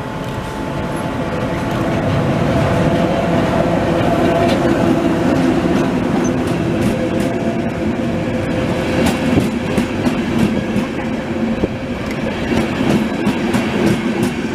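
Passenger train hauled by an electric locomotive rolling past along the platform. The rumble swells over the first couple of seconds, then holds steady as the coaches go by close at hand, with the wheels clacking over the rail joints in the second half.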